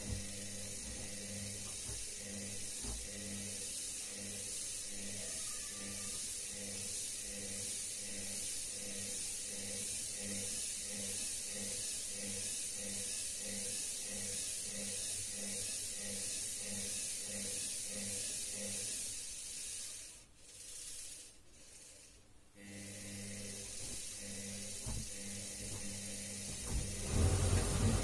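Front-loading washing machine in its wash cycle: the motor hums with a regular pulse as the drum tumbles soapy laundry in water, with a steady hiss. About two-thirds of the way through the drum pauses and goes quiet for a couple of seconds, then starts turning again, louder near the end.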